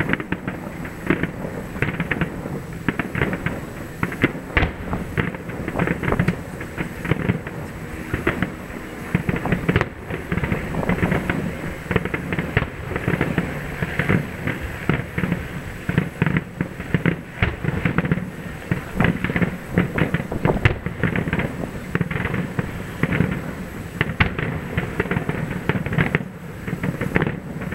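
Aerial fireworks shells bursting in quick succession: a dense, unbroken run of bangs and crackles.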